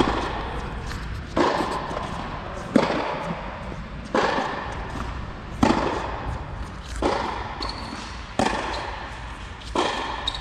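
Tennis rally: ball struck by rackets and bouncing on the court, a sharp hit about every second and a half. Each hit trails off in a long echo under the tennis dome's roof.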